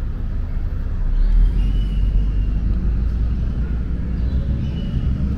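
Outdoor street ambience: a steady low rumble of road traffic, with a couple of faint, short high chirps above it.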